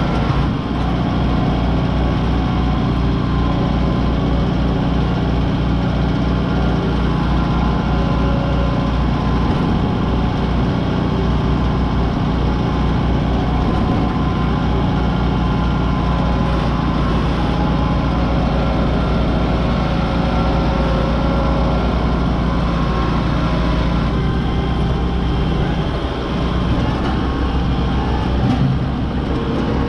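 Kubota M6060 tractor's four-cylinder diesel engine running steadily, heard close up from the operator's seat, with a brief dip in level near the end.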